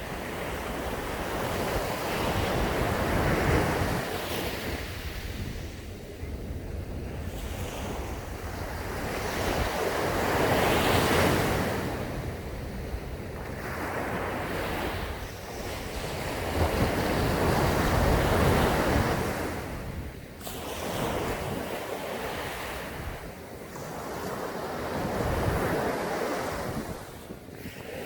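Sea waves breaking on a sandy beach, each one swelling up and washing back, four waves about seven seconds apart.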